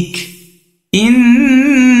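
Quran recitation in Arabic: a reciter's chanted, drawn-out voice. One phrase fades out with echo, there is a brief pause, and about a second in the next phrase begins on a long held, wavering note.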